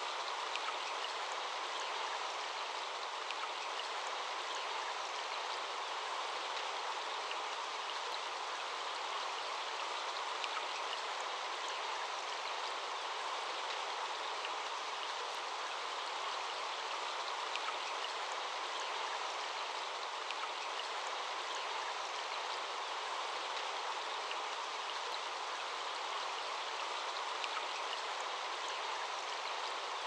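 Shallow stream running over rocks in a small white-water riffle: a steady, even rush of water.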